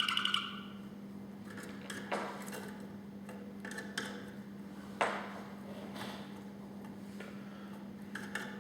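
A canary's song phrase ends about half a second in. A pause follows with a steady low hum and a handful of light, sharp clicks and taps, spaced a second or two apart.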